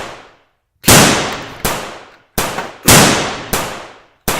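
Gunfire sound effects: six sharp shots at an uneven pace, each trailing off over about half a second.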